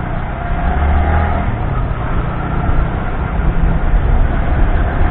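Steady road-travel noise from a moving vehicle: engine rumble mixed with wind and road noise on a clip-on microphone, with a faint wavering engine note about a second in.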